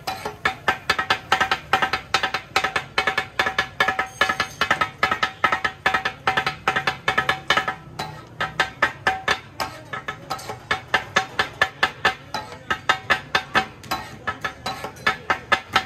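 Steel spatulas chopping and clanging on a flat iron griddle as katakat is cooked: a fast, rhythmic metallic clatter of several strikes a second, each with a short ring, easing briefly about halfway through.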